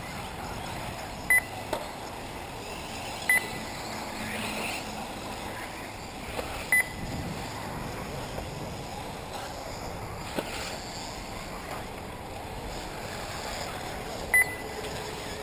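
Four short electronic beeps from a race lap-timing system as buggies cross the timing line, spaced irregularly over a steady outdoor background hiss.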